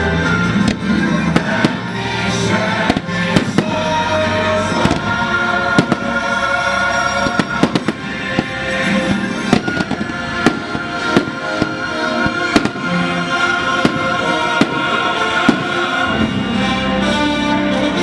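Fireworks show: a steady string of sharp firework bangs and cracks, about one to two a second, over the show's soundtrack music played through loudspeakers.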